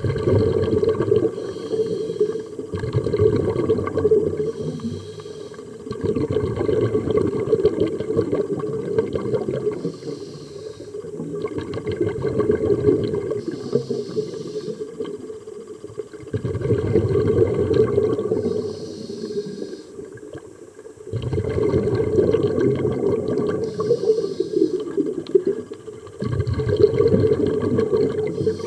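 Underwater scuba breathing through a regulator: loud spells of exhaled bubbling come roughly every four to five seconds, with a fainter, higher hiss of inhalation in the gaps between.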